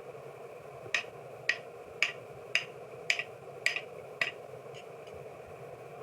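Hammer blows on steel: seven evenly spaced strikes, about two a second, each with a short metallic ring, then two faint taps, over a steady background noise.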